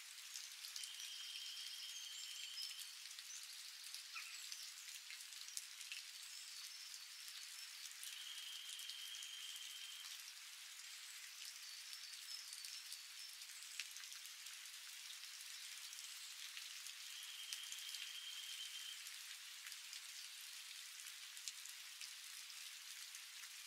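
Steady light rain falling, heard as an even hiss with scattered drop ticks. A high, steady-pitched call of about two seconds sounds three times over it.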